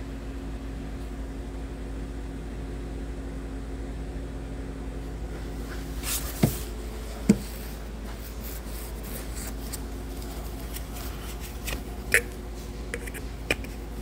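A ratchet and socket extension working the E12 Torx bolts of the intake manifold, giving a handful of sharp metal clicks and knocks spread out over several seconds, over a steady low hum.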